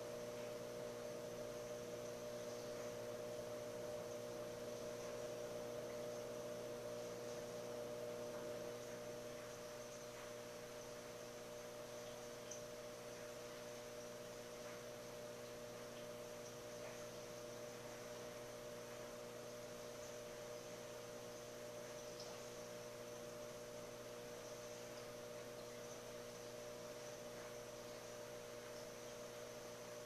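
Steady electrical hum of running aquarium equipment (air pump and power filter), several fixed tones over a faint hiss, easing slightly about nine seconds in.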